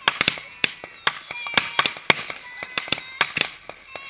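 Fireworks going off in quick succession: an irregular string of sharp pops and bangs, several a second.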